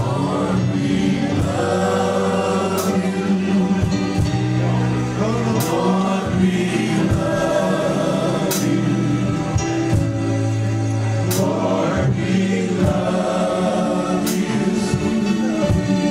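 Gospel choir singing over instrumental accompaniment with a steady bass line, punctuated by a few sharp hits.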